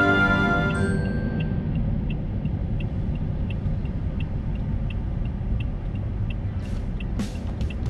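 Car cabin rumble while waiting at a junction, with the turn-signal indicator ticking evenly about three times a second. A few sharp crackles come near the end as the car moves off on the snowy road.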